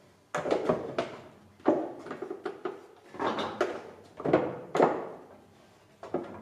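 Repeated short metal-on-metal sliding and scraping strokes on the surface grinder's guideway, about one every half second to a second. Each stroke starts sharply and fades quickly.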